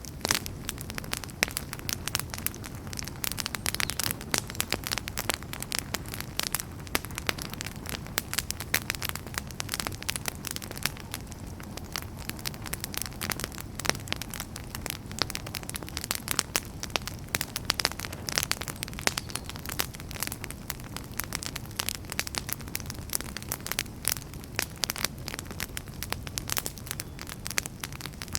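Campfire crackling: dense, irregular pops and snaps over a steady low rumble of the burning fire.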